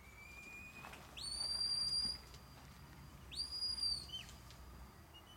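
Sheepdog handler's whistle commands to a herding dog working sheep. First a slightly rising note, then a long, flat, high note, then a shorter high note that falls off at its end, followed by a quick falling chirp.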